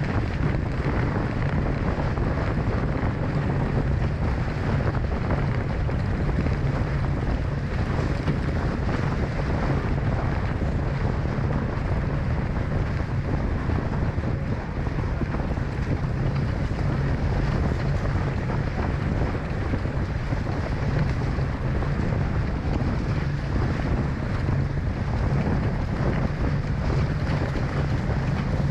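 Strong wind buffeting the microphone over water rushing and slapping along the hulls of a Hobie 16 catamaran sailing fast. It is a steady, even rush with a heavy low rumble and no breaks.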